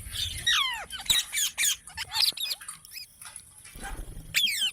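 Parrot squawking and chirping in a run of sharp calls, several of them sliding steeply down in pitch, then a loud burst of squawks near the end.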